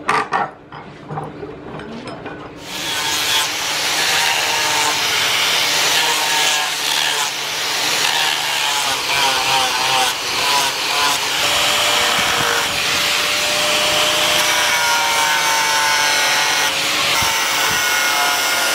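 Angle grinder with a sanding pad sanding a wooden machete handle: the hiss of the disc on wood with the motor's faint whine, starting about two and a half seconds in and running steadily after that.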